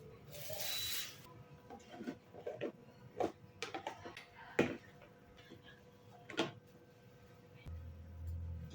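Kitchen handling sounds: a short hiss in the first second, then a string of light clicks and knocks as food containers and lids are handled, with a low hum starting near the end.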